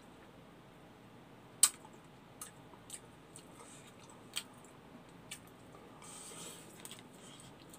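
Eating by hand from plastic containers: light clicks and taps as fingers pick up rice, with one sharp click about a second and a half in. A soft noisy stretch of eating sounds follows about six seconds in, as a handful goes into the mouth.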